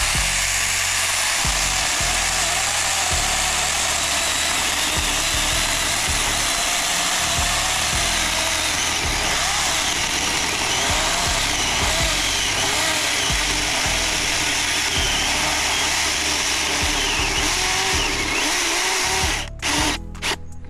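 Saker mini cordless electric chainsaw running steadily under load as it cuts through a tree branch. About 19 seconds in it stops and starts a few times in quick succession.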